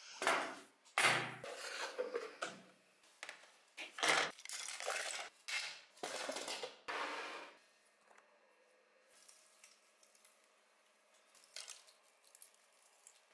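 Small die-cast metal and plastic model-car parts clattering and knocking together in a string of bursts, some over a second long, for the first half or so, then near quiet with a few faint ticks near the end.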